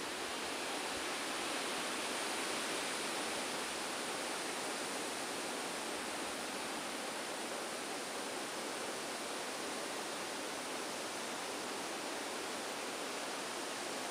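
A steady, even rushing noise with no calls, clicks or knocks in it.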